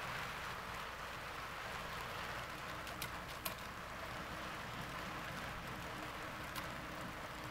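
Model coal hopper cars rolling along the track: a steady rolling hiss of wheels on rails, with a few sharp clicks about three, three and a half and six and a half seconds in.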